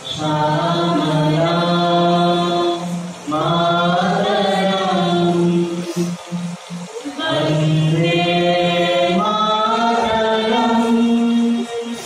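A small group of voices singing a song together in long, held phrases, with a short break about six seconds in and another near the end.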